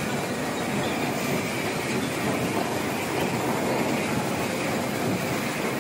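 Carrot washing and grading machinery running: a rotating drum washer and conveyor line making a steady, even rumbling clatter.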